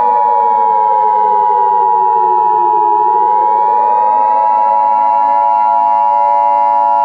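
Steady two-tone Emergency Alert System attention signal just under 1 kHz, over a wailing civil-defense siren that falls in pitch for about three seconds, then rises again and holds.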